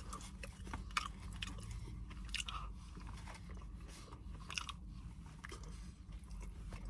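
A person chewing a mouthful of burrito close to the microphone, with scattered short mouth clicks over a faint low hum.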